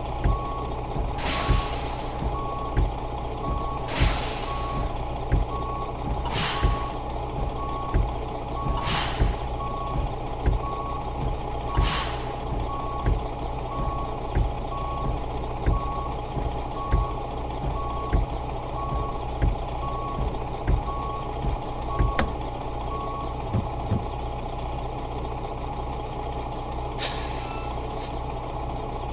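A heavy truck's reversing alarm beeps steadily over a running diesel engine, and the beeping stops about three quarters of the way through. Short bursts of hissing air break in every few seconds.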